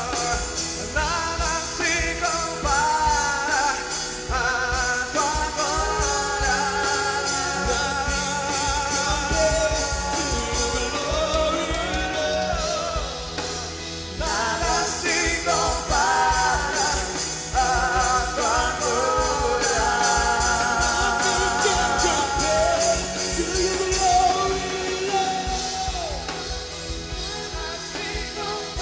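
Live worship band music: a man singing long, wavering phrases with no clear words over the band and a steady beat.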